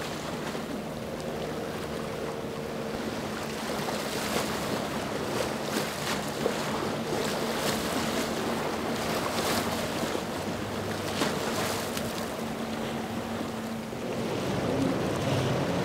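Mercury outboard motor on a small center-console skiff running at speed with a steady drone, under the hiss of wind and waves. The drone drops out near the end.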